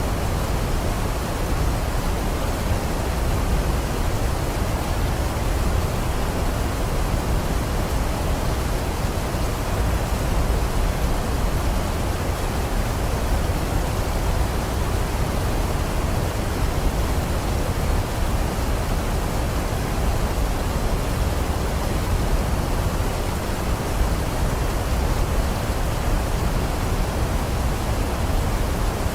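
Waterfall rushing: a steady, unbroken roar of falling water, deep and heavy in the low end.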